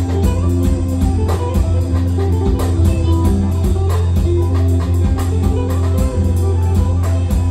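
Electric guitar playing an instrumental line of quick single notes over a steady low tone.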